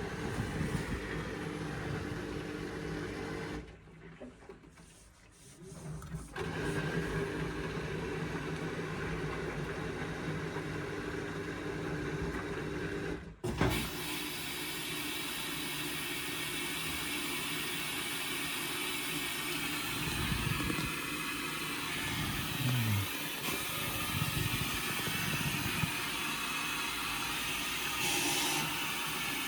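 Indesit washing machine running mid-cycle: a steady motor hum that drops away briefly near the start, then a sharp click about halfway through, after which a steady hiss takes over along with the drum's low motor sounds.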